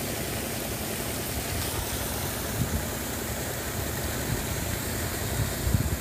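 Steady rushing hiss of a high-pressure water jet from a hose nozzle spraying onto wet silt, over a continuous low engine-like rumble.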